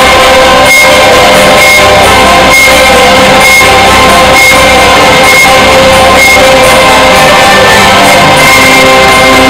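Loud music with sustained held notes and a regular beat a little more often than once a second.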